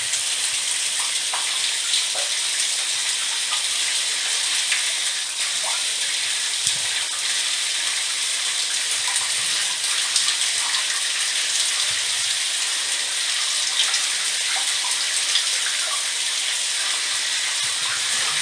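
Shower running: a steady hiss of water spraying from the shower head and splashing, with small irregular splashes throughout.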